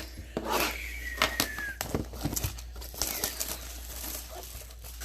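Trading-card packaging and cards being handled: irregular rustling and crinkling with scattered clicks, and a short falling squeak about a second in.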